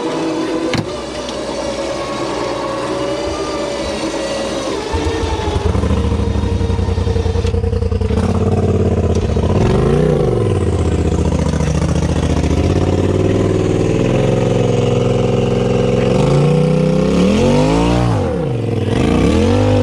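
A side-by-side UTV's engine running, growing louder about five seconds in. It is then revved up and down in short swells, once near the middle and several times near the end, while straining on a tow rope to pull an overturned side-by-side.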